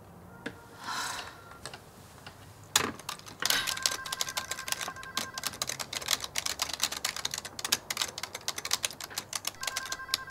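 Fast typing on a computer keyboard: a dense, uneven run of key clicks that starts about three seconds in and keeps going.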